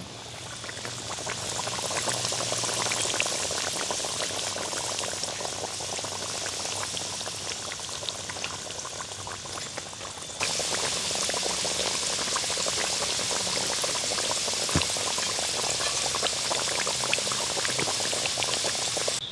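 Cheese-filled dumplings frying in hot oil: a steady sizzle thick with small crackles, stepping up louder about halfway through.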